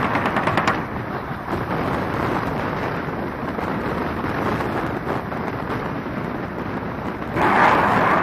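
Steady rumbling noise of a helicopter in flight. A fast, even beat in the first second stops abruptly, and a louder hiss comes in near the end.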